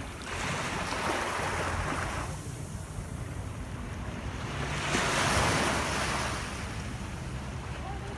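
Shallow surf washing up over sand in two swells about four seconds apart, with wind rumbling on the microphone.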